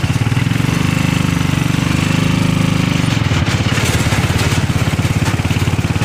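A vehicle's engine running steadily with a fast, even low chugging pulse.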